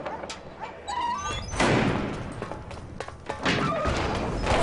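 Film soundtrack: music with dull thuds, the loudest coming about one and a half seconds in, again a couple of seconds later and at the very end.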